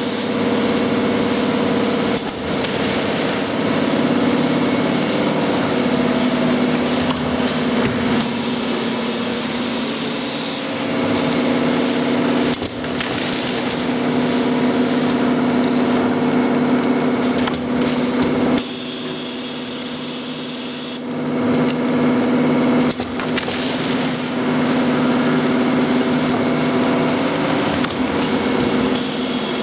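A 5 kg granulated-sugar packaging machine running: a steady motor hum under loud mechanical noise that shifts every few seconds as the machine works through its cycles.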